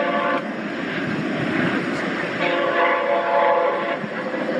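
A horn with several tones sounding together: a long blast ends about half a second in, and a second long blast comes about two and a half seconds in, over a steady rumbling noise.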